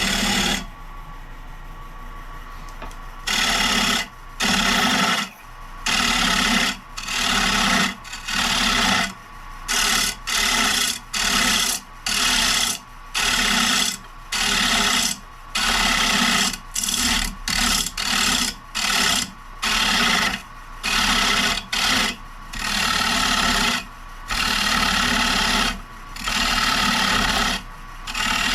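Carbide turning tool cutting a spinning maple bowl blank on a wood lathe, in repeated scraping passes about a second long over the steady hum of the running lathe, truing out the blank's wobble. The first few seconds hold only the lathe's hum before the cutting starts.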